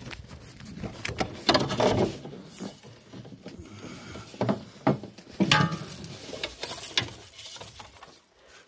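Fishing rods, reel and boat gear being handled: irregular knocks, clicks and rattles, with a few louder clatters.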